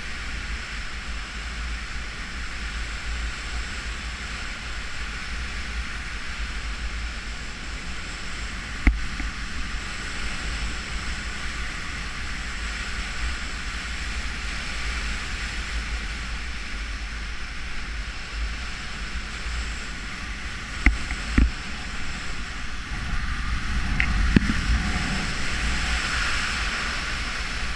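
Airflow rushing over the camera's microphone in flight: a steady wind noise with a heavy low rumble. A few sharp knocks about nine seconds in and twice about twenty-one seconds in, and the rush grows louder near the end.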